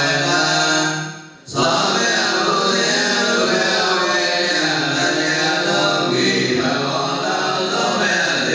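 Buddhist devotional chanting: voices in a steady, sung recitation on long held notes, with one brief breath pause about a second and a half in.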